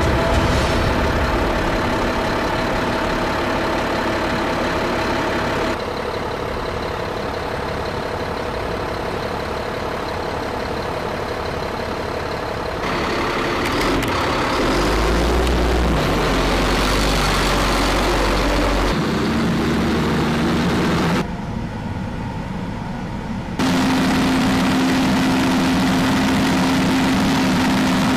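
Heavy military truck diesel engines running and idling, heard in a string of clips that cut abruptly every few seconds. The last stretch is a steady idle from an M142 HIMARS rocket launcher truck.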